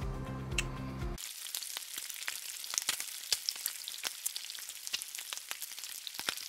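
A short music track cuts off about a second in. It gives way to bacon sizzling on a flat-top griddle, a steady crackle with frequent sharp pops of spitting fat.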